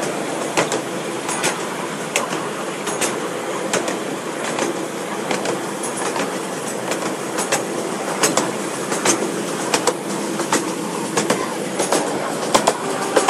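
Ride-on miniature railway carriages running along the track: a steady rolling rumble with sharp clicks every second or so from the wheels passing over the rail joints.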